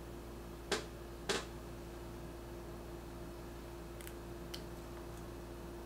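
Two sharp clicks about half a second apart, then a few faint ticks near the end, as a glass perfume bottle and its cap are handled, over a faint steady hum.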